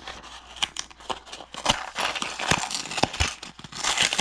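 A LEGO minifigure blind bag being torn open and rummaged through: crinkling packaging and a scatter of small, irregular clicks and taps as the pieces knock together.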